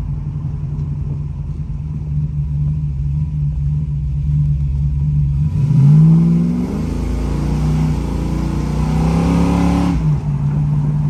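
The 1969 Camaro's engine idling with a steady low note, then revved up about five seconds in and held at higher revs for about four seconds before dropping back to idle.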